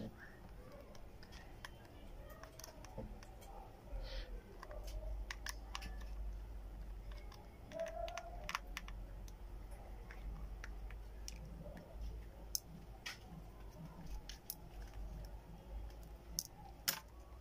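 Irregular small clicks and taps of plastic and metal as an Infinix Note 5 (X604) smartphone is taken apart by hand with a small tool, over a low steady hum.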